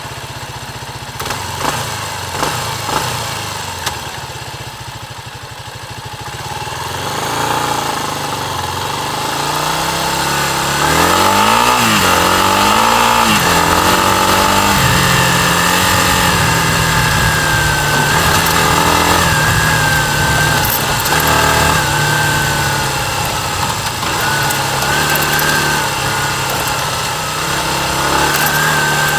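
Kawasaki KLR250 single-cylinder four-stroke engine, running low and steady at first with a few knocks, then revving up and down repeatedly about eleven seconds in, then pulling along under load with its pitch rising and falling as the bike is ridden over dirt.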